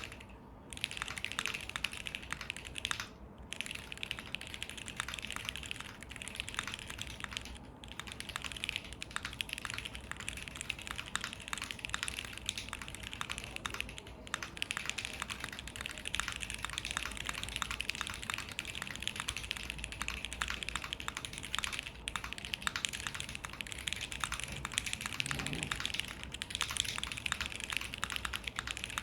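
Continuous fast typing on a TGR x SINGA Unikorn R2.2 mechanical keyboard with lubed JWK Alpaca linear switches in a friction-O-ring-mounted FR4 plate and GMK keycaps: a dense stream of key clacks with brief pauses about 3, 8 and 14 seconds in.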